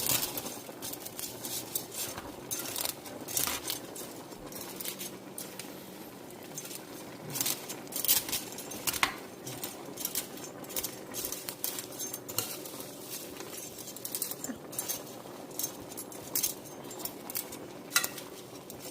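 A utensil clinking and scraping against a cooking pot while stirring and separating pancit canton noodles in boiling stock, with many light, irregular clicks.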